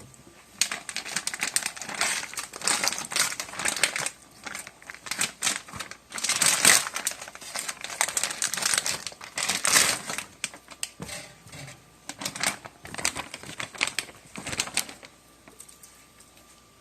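Plastic wrapping crinkling and crackling in irregular bursts as it is handled. It stops shortly before the end.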